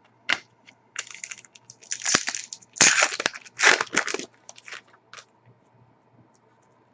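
Crinkling and rustling of trading-card packaging and cards being handled, in a run of short bursts that is loudest about three to four seconds in.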